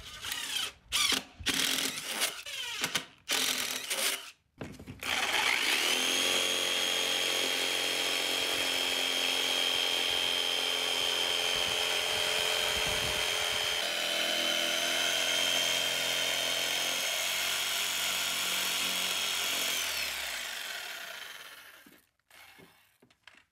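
Cordless drill run in a few short bursts, boring a starter hole through an MDF panel. About five seconds in, a corded jigsaw starts and runs steadily with a high whine for about fifteen seconds, cutting out a rectangular opening, then winds down and stops near the end.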